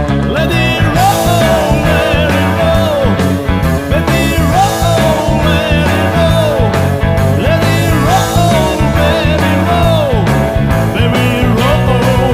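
Blues-rock music with electric guitar bending notes over a steady bass line.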